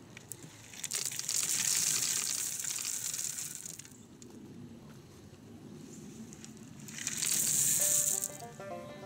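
Shovelfuls of gravel pouring off a shovel and rattling into a hole, once about a second in for about three seconds and again around seven seconds. Plucked banjo-style background music starts near the end.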